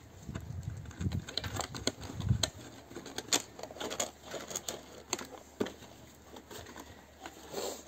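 A plastic bottle being pushed and twisted into the hole of a rusty metal tray by gloved hands: irregular crackling and clicking of the plastic against the metal, with low thumps of handling in the first two seconds or so.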